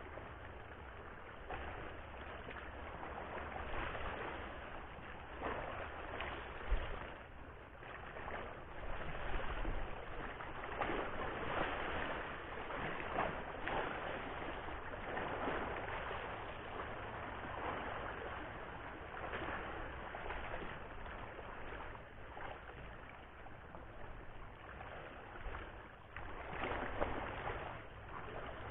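Sea waves washing against shoreline rocks: an uneven wash of water noise that swells and fades every second or two, with a couple of soft low thumps about seven and ten seconds in.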